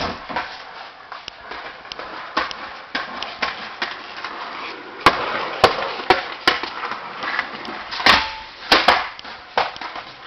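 Skateboard wheels rolling on a concrete floor, with repeated sharp clacks of the board slapping the floor, most of them in the second half.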